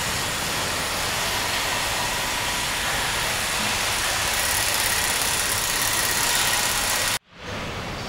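Steady assembly-line factory noise: an even, hissing wash of machinery with faint steady whines. It cuts off abruptly about seven seconds in and returns quieter.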